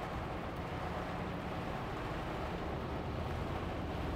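Cab interior of a Hino Profia heavy truck driving in heavy rain: the steady drone of the diesel engine under a constant hiss of rain and wet road noise.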